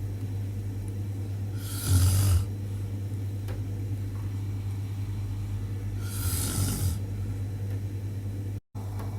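A man snoring in his sleep: two loud, noisy snores about four seconds apart, each lasting about a second, over a steady low hum.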